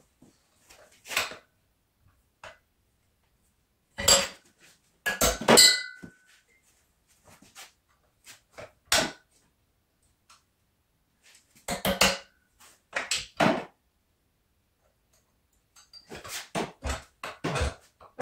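Hammer blows on metal work clamped in a bench vise, coming in short groups a few seconds apart, with a brief metallic ring after some strikes.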